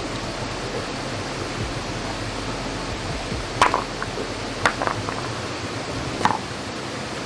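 Steady hiss of rain, with four or five louder drops ticking sharply in the second half.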